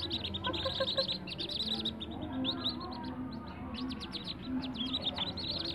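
A brood of whistling duck ducklings peeping: many short, high, falling peeps overlapping in a continuous chorus.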